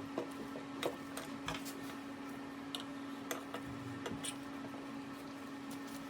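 A steady low hum with scattered light clicks and taps, about a dozen irregularly spaced.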